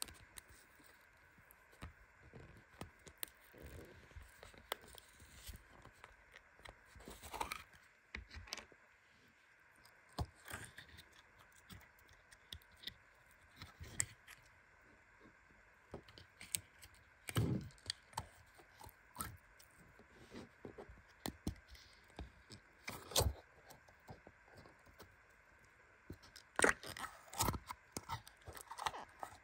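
Thin plastic bottle crinkling and crackling as hands squeeze and twist it to work slime out: irregular soft crackles and clicks, with a few louder ones now and then.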